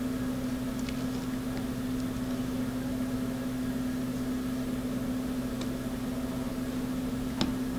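A steady low mechanical hum, with a few faint small clicks as a tiny plastic JST connector is handled and pushed onto a circuit board.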